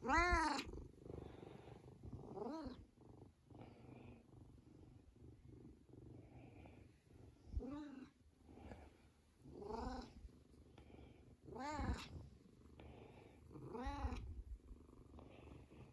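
Tabby cat purring steadily while being stroked, giving six short meows, each rising then falling in pitch, spaced a few seconds apart.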